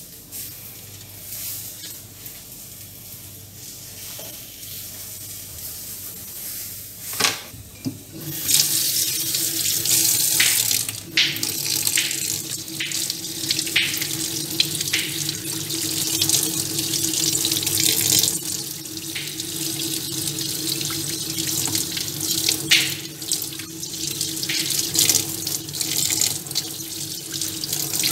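Tap water running slowly over a crab held in the hands as it is rinsed, starting about eight seconds in, with small splashes and knocks from the handling. Before the water comes on there are only quiet handling sounds and a few clicks.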